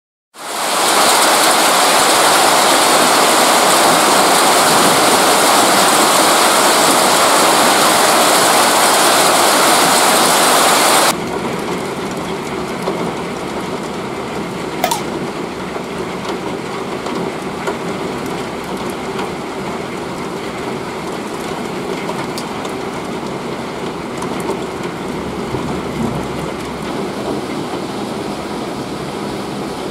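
Heavy hail and rain coming down hard, a loud steady roar that cuts off abruptly about eleven seconds in, then a quieter steady hiss of the downpour with a single click about fifteen seconds in.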